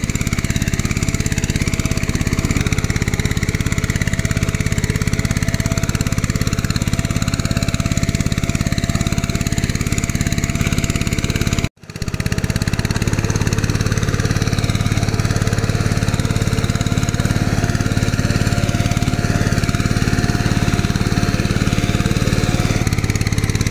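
An engine running steadily at an even speed, like a small tractor engine, with a faint steady tone above it; it breaks off for an instant near the middle and resumes unchanged.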